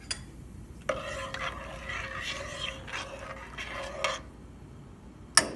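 A metal spoon stirring water in a stainless steel pot, rasping and rubbing against the metal for about three seconds. Near the end the spoon clinks sharply once against the pot.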